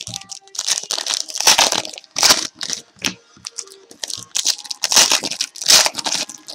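Trading-card pack wrappers being torn open and crinkled, an uneven string of short crackling rustles.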